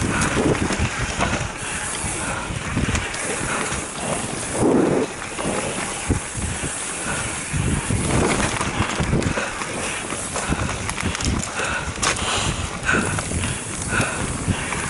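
Mountain bike ridden fast down a dirt singletrack: tyres rolling over loose dirt, with the frame and chain rattling and knocking over bumps throughout.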